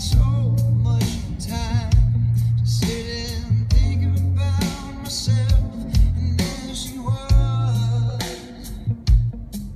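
A song with singing, guitar, drums and a heavy bass line, played loud through an aftermarket high-end car audio system (Dynaudio Esotar component speakers and a 10-inch subwoofer) and heard inside the car's cabin.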